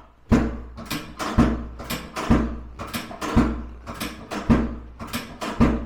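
A run of about a dozen hard thumps, roughly two a second, each with a deep thud that dies away quickly.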